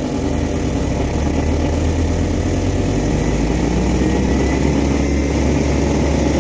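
An engine running steadily, a deep even drone with a faint thin whine above it.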